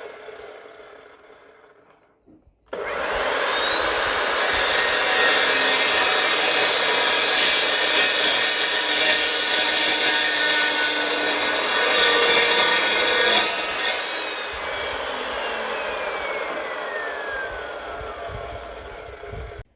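Evolution chop saw starting up with a quickly rising whine, then cutting through steel box section for about ten seconds with loud grinding and screeching. The saw is then switched off and its motor winds down with a long falling whine.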